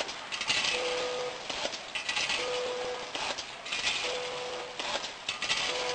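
ZV-320A automatic snack packing machine running through its bag-making cycle, repeating about every 1.7 seconds: each cycle brings a short steady hum, a rush of hiss and a series of clicks and clatter.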